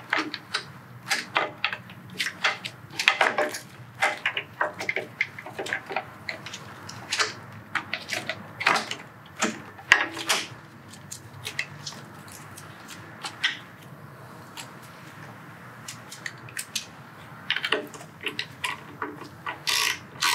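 Plastic battery-tray parts on a Harley-Davidson Road Glide being handled and fitted into place: an irregular series of sharp clicks, knocks and rattles. Near the end a socket ratchet adds a quick run of clicks.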